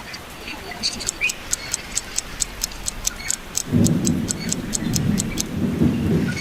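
A rapid, even run of sharp ticks, about five a second. A low rushing sound comes in partway through and carries on after the ticks stop.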